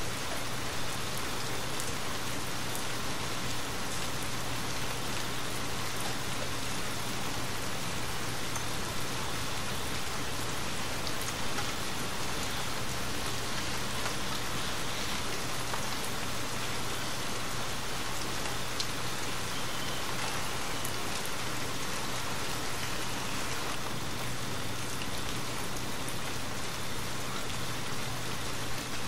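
Steady rain falling, an even hiss with scattered faint clicks.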